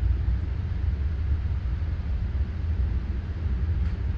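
Steady low background rumble with a faint hiss above it, even and unchanging throughout.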